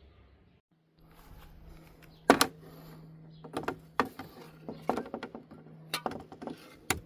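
Irregular sharp clicks and knocks of a refrigerant can being screwed onto a car A/C recharge hose, about seven of them, the loudest about two seconds in.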